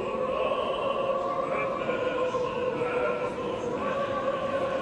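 Mixed high-school choir singing, its voices holding long sustained notes.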